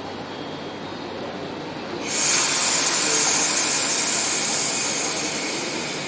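A train's air brakes venting compressed air: a sudden loud hiss about two seconds in that slowly fades, over the steady noise of a train standing in the station.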